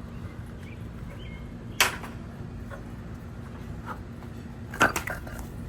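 Two sharp knocks, about three seconds apart, over a steady low hum.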